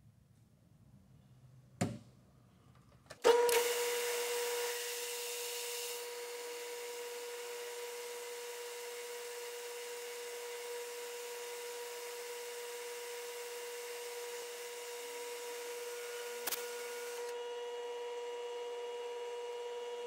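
A metal lathe starting up about three seconds in and then running steadily with a constant whine, while a small boring bar cuts a counterbore in the face of a brass part. A sharp click comes just before the start and another near the end.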